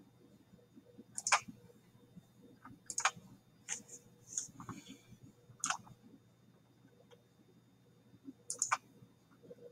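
Computer mouse button clicking, about six separate clicks a second or more apart, with a quick double click near the end, as points of conic arcs are placed in a CAD sketch.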